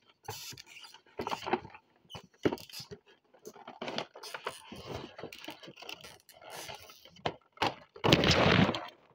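A toy figure's packaging being handled and opened: irregular scrapes, taps and rustles of the cardboard box and its insert, then a loud crinkling of a clear plastic bag near the end.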